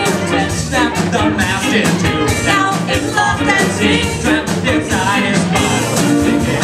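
Ska band playing live: saxophone, trombone, electric guitars and bass over a steady drum beat.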